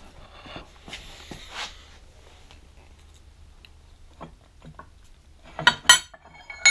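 Metal bar stock being handled: faint rustling, then a few sharp clinks near the end as pieces knock together and ring.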